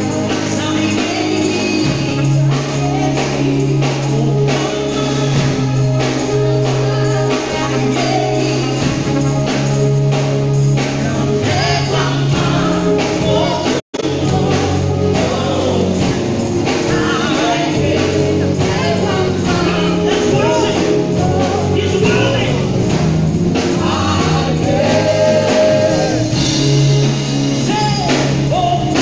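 A woman singing a gospel song into a handheld microphone over a live band with a drum kit. The sound cuts out for an instant about halfway through.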